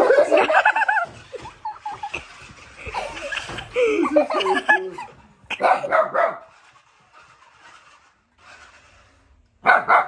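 Siberian husky puppy barking and yipping in bursts of high, bending calls. It falls quiet for a few seconds, then barks again near the end.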